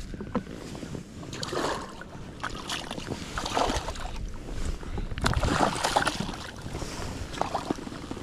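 Water splashing and sloshing against a jet ski, broken by irregular knocks and clatters, with wind on the microphone; the splashing is heaviest around the middle.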